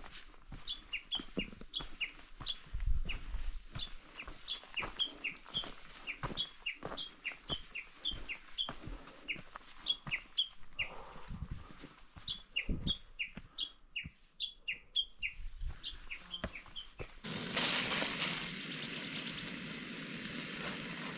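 Forest birds calling over and over in short high notes that slide downward, several a second, with scattered soft knocks underneath. About three-quarters of the way through it cuts to a steady hiss of food sizzling.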